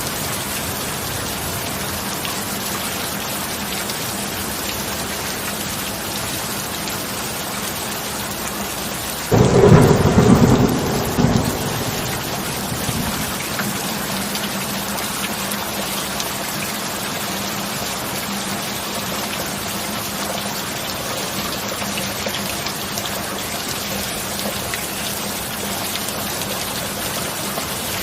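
Steady heavy rain, broken about nine seconds in by a sudden loud thunderclap that rumbles for two to three seconds before the rain alone carries on.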